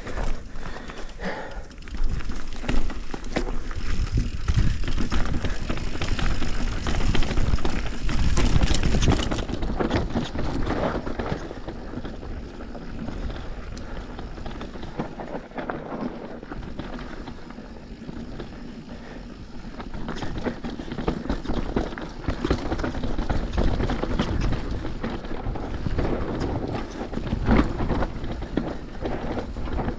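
Mountain bike riding fast down a dirt downhill trail, heard from a camera on the rider: tyres rolling and skidding over dirt and roots, with the bike rattling over bumps. It is loudest and roughest for the first ten seconds, eases off through the middle and picks up again for the last stretch.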